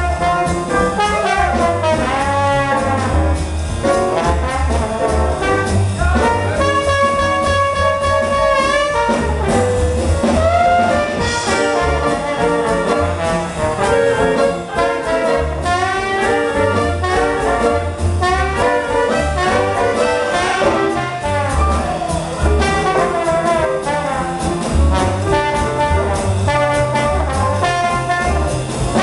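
Live small-group jazz: trumpet and trombone play melody lines over a plucked double bass. A horn holds one long note from about six and a half to nine seconds in.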